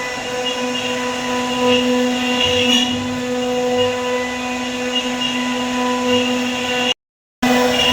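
Six-head CNC router running: a steady electric whine over a low hum, holding an even pitch. The sound cuts out completely for about half a second near the end.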